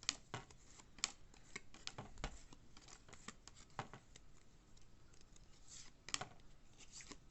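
Trading cards being handled and flipped through by hand: faint, irregular clicks and soft slides of card stock.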